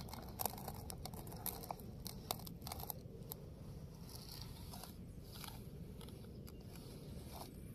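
Plastic toy trolley wheels rolling slowly through dry sand, giving a faint crunching with scattered small clicks, most of them in the first three seconds or so.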